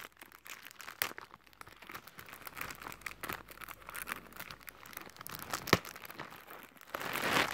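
Plastic wrapping on a box of chocolates crinkling and tearing as it is handled and peeled off by hand, with a couple of sharp clicks. The crinkling gets louder near the end.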